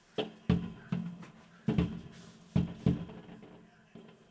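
Aerial firework shells bursting in a rapid series. There are about six sharp bangs in the first three seconds, each trailing off briefly, then a faint pop near the end.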